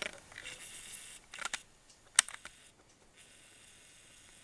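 Small clicks from a handheld camera being worked while zooming and focusing: a couple of light clicks, then one sharp click about two seconds in, with a faint hiss between them.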